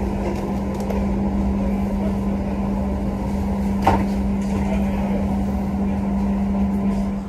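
Steady low hum of a passenger train's onboard machinery: one constant pitched drone over a dense rumble. A single sharp knock comes about four seconds in.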